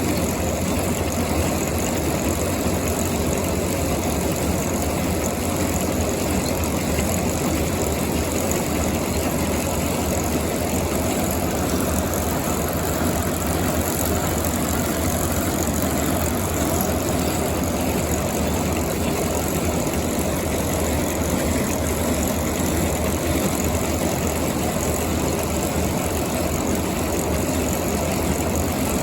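Farm machinery engine running at a steady speed, a constant drone with a low hum.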